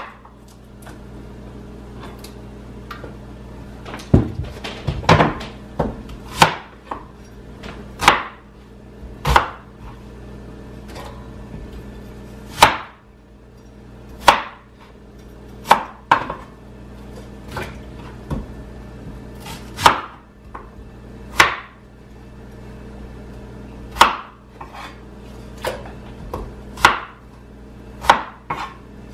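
Large kitchen knife cutting red onions on a plastic cutting board. Sharp, separate knife strikes on the board begin about four seconds in and come irregularly, about one to three seconds apart.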